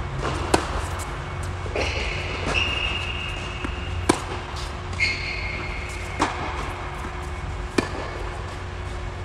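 Tennis rally: a racket strikes the ball about every four seconds (three loud cracks close by), with softer knocks between them from the ball bouncing on the hard court and from the far player's racket, over a steady low hum.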